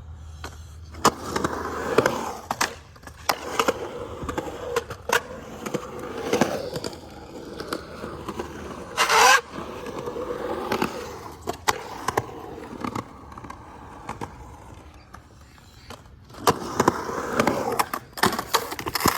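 Skateboard rolling on concrete, the wheels rumbling, with repeated sharp clacks of the board and trucks hitting the ground. A short loud scrape comes about nine seconds in, and louder rolling with more clacks near the end.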